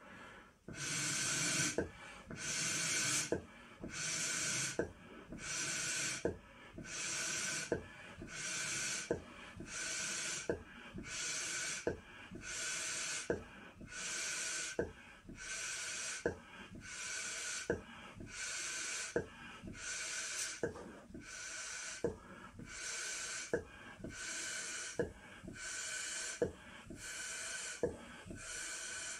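A 16-inch Unique latex balloon being blown up in repeated strong puffs of air, about one every one and a half seconds, each a hissing rush with a short click between puffs, as it is inflated toward popping.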